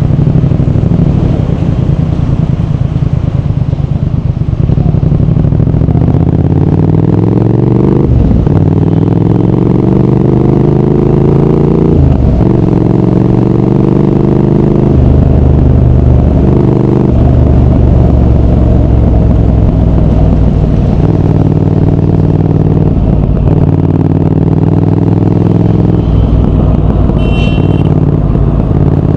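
Triumph Speed Twin 1200's 1200 cc parallel-twin engine and exhaust pulling hard through the gears. The pitch climbs, drops sharply at each upshift, and climbs again, several times over.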